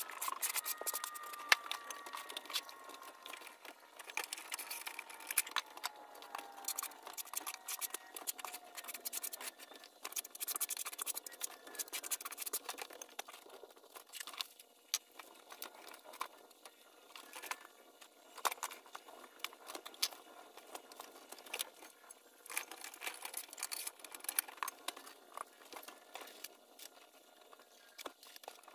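Hand tiling work: a notched trowel scraping thinset mortar onto cement backer board, with irregular clicks and knocks as tiles and plastic spacers are handled. A faint tone slides downward over the first several seconds.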